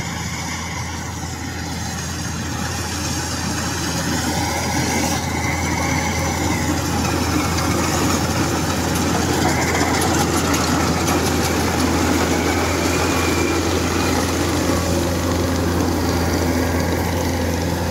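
Rice combine harvester running under load while cutting and threshing rice, a steady heavy engine hum with dense mechanical clatter. It grows louder through the first half as the machine comes closer, then holds steady.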